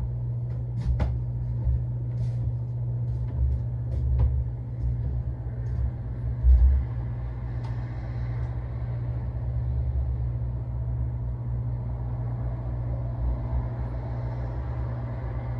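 Steady low hum with scattered light clicks and taps, the loudest a thump about six and a half seconds in.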